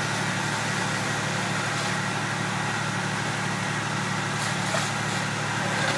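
A fire engine's diesel motor running steadily with an even low drone, driving its pump for the hose streams, with a steady hiss over it.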